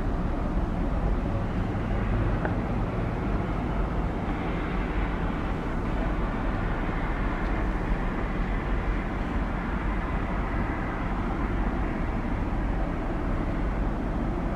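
Steady low drone of a passing seagoing tug's diesel engines, with a constant rushing noise over it.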